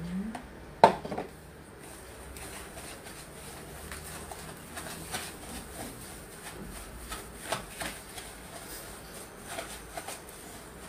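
Wire whisk stirring desiccated coconut into a butter-and-egg batter in a plastic bowl: light, irregular clicks and scrapes, with one sharp knock about a second in.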